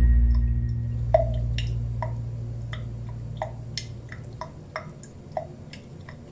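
Water dripping: single drops landing with short plinks, about two a second. A low note fades out underneath during the first four seconds.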